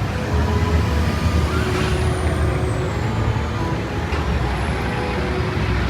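A heavy vehicle's engine running steadily: a low, continuous rumble with a faint whine gliding up and down about two seconds in.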